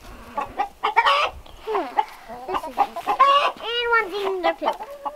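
A flock of backyard hens clucking and squawking, short calls overlapping one after another, as they crowd in to be fed worms.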